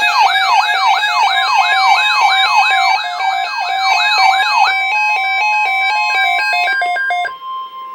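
Layered electronic sirens: a yelp sweeping up and down about three times a second over an alternating hi-lo siren tone. The yelp stops partway through, leaving the hi-lo tone and a steady single tone, and the hi-lo tone cuts off suddenly near the end so only the steady tone remains.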